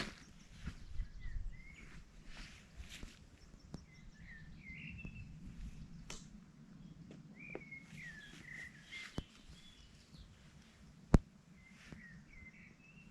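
Birds calling on and off in short, curving chirps over a low steady outdoor hum, with some rustling early on and a few sharp clicks, one much louder about eleven seconds in.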